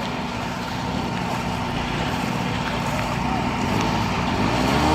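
A motor vehicle's engine running steadily under a constant wash of noise.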